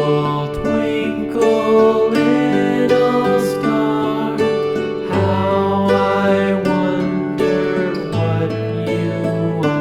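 Background music: a plucked-string instrumental with sustained notes that change every second or so.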